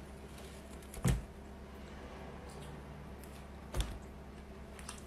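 Two dull thumps, about a second in and again nearly three seconds later, with a few faint clicks over a low steady hum.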